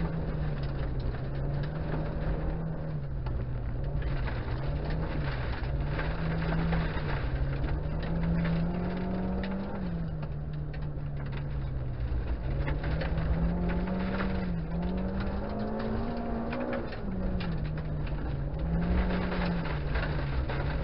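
Honda Integra DC2's four-cylinder engine, heard from inside the cabin, revving up and dropping back again and again on and off the throttle through the turns of a wet gravel course. A constant clatter of gravel and water strikes the underbody.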